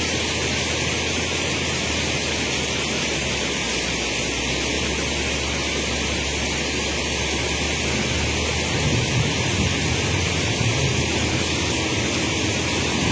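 Steady rushing noise of a swollen, muddy river, with the low rumble of a wheel loader's diesel engine working among landslide boulders.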